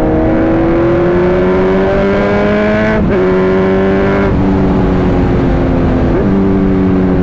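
Sport motorcycle engine accelerating in gear, heard from the rider's seat with wind noise. Its pitch rises, then briefly dips at an upshift about 3 seconds in and again about 6 seconds in before it holds steady in the higher gear.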